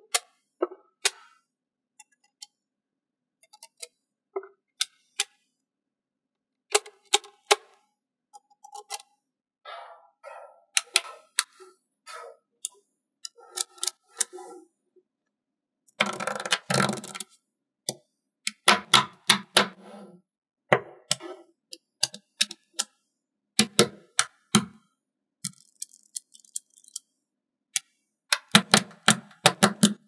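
Small magnet balls clicking and snapping together in irregular clusters of sharp clicks, with short gaps of silence between. About halfway through comes a denser clattering burst lasting a second or so.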